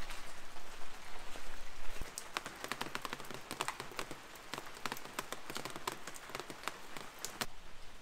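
Rain falling, with many sharp drops pattering close by over a steady hiss. It grows softer about two seconds in, and the hiss drops away near the end.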